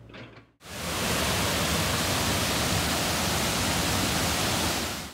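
Loud, steady rushing of flowing water, cutting in sharply about half a second in and stopping abruptly at the end.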